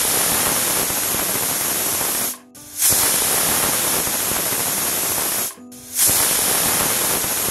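Stovetop pressure cooker whistling three times: loud steam hisses of about two and a half seconds each with short breaks between, the first already sounding and the third starting about six seconds in. These are the whistles counted to time the rice and moong dal cooking under pressure.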